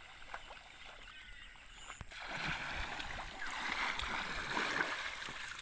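Shallow water rushing and splashing as a triangular bamboo push net is shoved through flooded paddy water. The rush starts suddenly about two seconds in and runs on steadily, louder than the faint water sounds before it.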